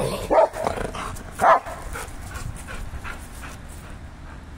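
Rottweiler barking: several loud barks in the first second and a half, then fainter, softer calls that die away.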